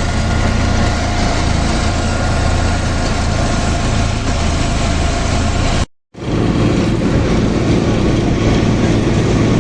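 Vibratory pile driver working, a steady loud machine drone with a low hum underneath, as the hammer shakes a steel pile into the ground. About six seconds in the sound cuts out briefly and comes back with a slightly higher drone.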